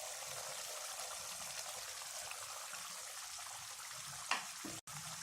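Chicken curry simmering in a pan on the stove, a steady low bubbling hiss as its cooking water boils down, with one brief knock near the end.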